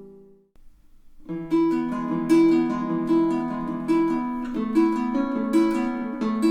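Pono solid acacia baritone ukulele being played: a chord rings out and dies away, then after about a second fingerpicked notes start in a repeating pattern, each note left to ring over the next.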